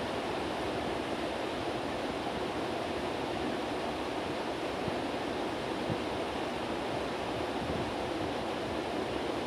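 Heavy rain making a steady hiss, with a couple of faint clicks about halfway through.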